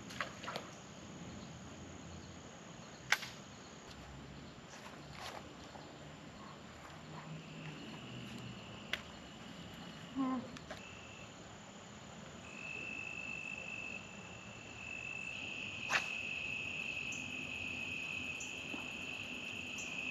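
Insects drone in a steady high buzz that comes in about halfway and grows louder. Under it runs a fainter, higher steady whine, broken by a few sharp clicks.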